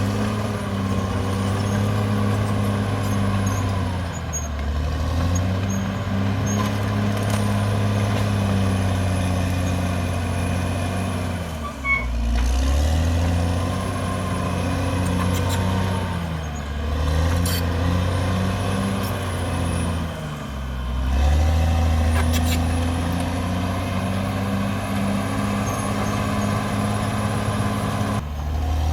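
Caterpillar D6R XL bulldozer's diesel engine running steadily and loudly, its note dipping and recovering several times, with a faint high whine over it.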